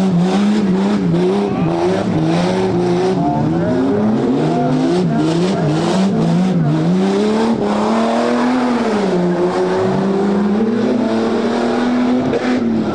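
Tuff truck's engine revving up and down in quick surges, about once a second, as the throttle is worked on and off, with scattered knocks and clatter from the truck. Near the end the revs hold a steadier, higher note for a couple of seconds.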